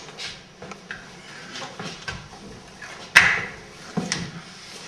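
A person crawling on a carpeted floor: rustling and scattered bumps and knocks, with one sharp knock about three seconds in the loudest, and a few smaller knocks just after it.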